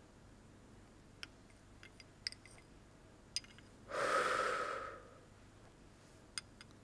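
A porcelain spoon clinking lightly against a small bowl of medicine a few times. About four seconds in comes a soft breath of about a second, blowing on a spoonful to cool it.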